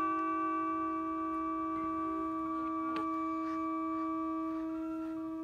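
A steady, organ-like held chord of sustained musical tones, with an upper note shifting about halfway through and a faint click about three seconds in.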